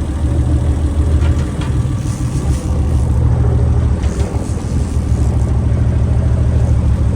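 Boat engine running steadily, a loud low drone.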